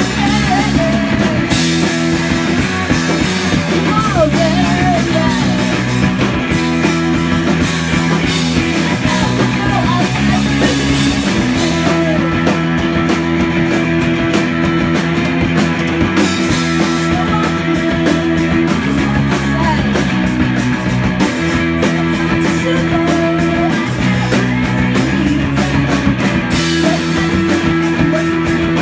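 Live punk rock band playing loud: electric guitar, electric bass and drum kit, with a woman singing.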